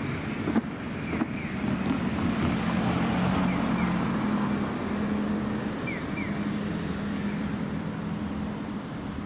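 A vehicle's steady low hum over a wash of outdoor noise, with a couple of light clicks in the first second and a half and short high chirps in pairs every couple of seconds.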